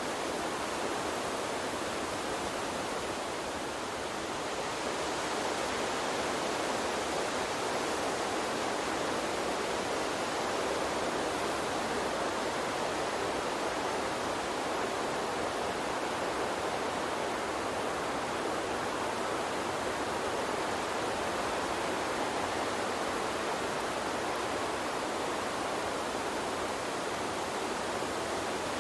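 Gentle water stream running steadily, an even rushing noise that holds level throughout, dipping only slightly about four seconds in.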